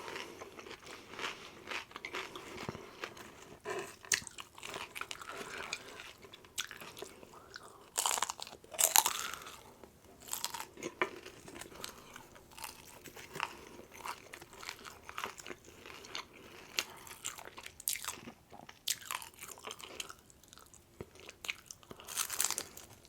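Close-up chewing and crunching of crispy fried rolled tacos, irregular crackling bites with louder crunches about eight seconds in and again near the end.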